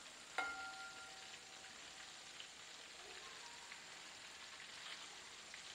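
Flour-coated chicken pieces deep-frying in hot oil on a low flame: a faint, steady sizzle with light crackles. About half a second in, a single sharp clink rings briefly.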